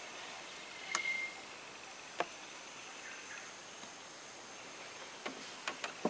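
Faint riverside ambience with a steady high insect drone, broken by a few sharp clicks about a second in, about two seconds in and in a quick cluster near the end.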